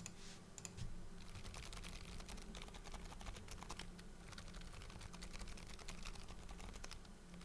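Typing on a keyboard fitted with Kailh Deep Sea Whale Fall silent tactile switches: a fast, quiet run of keystrokes whose leaf is tuned to sound much more like Topre.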